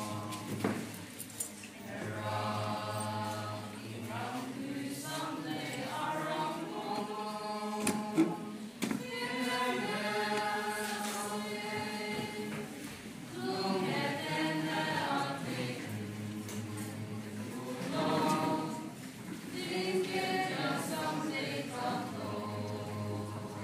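A group of young male and female voices singing together as a choir, in held phrases of a few seconds with short breaths between them. There is a short knock about eight seconds in.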